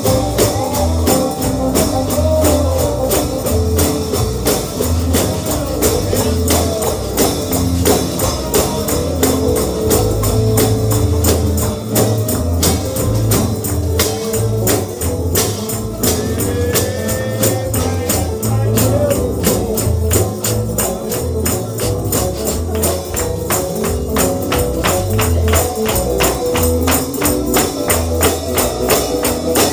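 Bluegrass gospel music: a tambourine jingling on a steady fast beat over a bass line and melody instruments.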